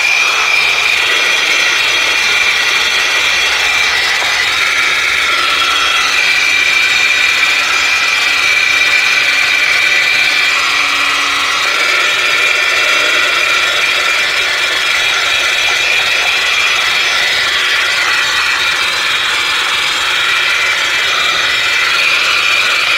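Portable 12-volt car vacuum cleaner, plugged into the cigarette lighter, running steadily without its nozzle: a high whine over rushing air as it sucks dirt from the car's interior, its tone shifting a few times as the intake moves over surfaces.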